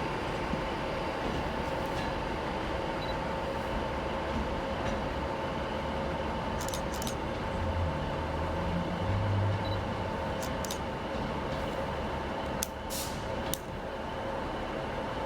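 Avanti West Coast Class 390 Pendolino electric train pulling away: a steady electric whine over a low rumble, with a few sharp clicks from the wheels about halfway through and again near the end.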